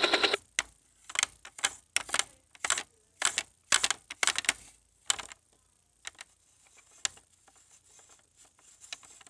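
The electronic buzzing rotor sound effect of a VTech Explore and Learn toy helicopter cuts off right at the start. It is followed by irregular hard plastic clicks and knocks as the toy is handled, thickest in the first few seconds and fainter after.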